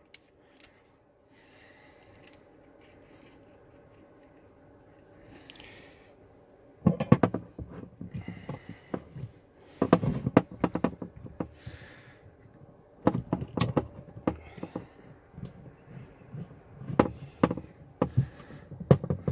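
Hand rivet nut tool and metal parts being handled: several bursts of sharp clicks and knocks, after a few quiet seconds.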